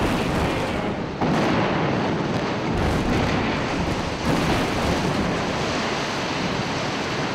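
Explosive demolition of a multi-storey concrete office building: about 350 kg of charges going off and the continuous rushing rumble of the building collapsing, with fresh loud surges about a second in, near three seconds and just past four seconds.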